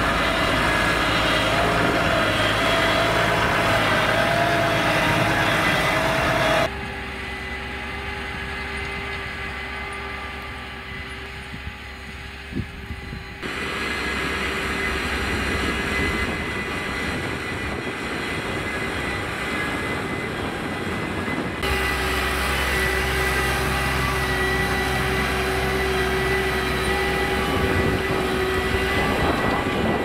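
Case IH Maxxum 140 tractor's diesel engine running steadily under load while pulling a drag harrow through tilled soil. The sound drops abruptly to a quieter, more distant level about a quarter of the way in and comes back loud for the last third.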